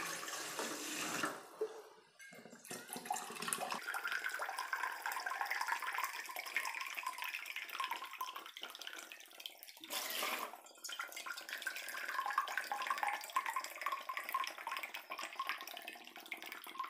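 Water pouring and splashing into a stainless-steel mug and bowl, first from the mug into the bowl, then from a plastic can into the mug. There is a short break about two seconds in and another just after ten seconds.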